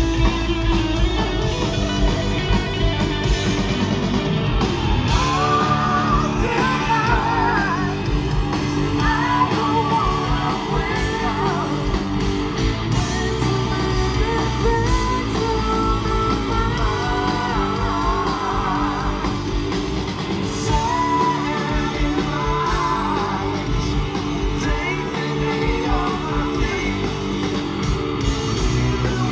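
Live rock power trio playing: distorted electric guitar, electric bass and a drum kit, with a male lead vocal coming in a few seconds in.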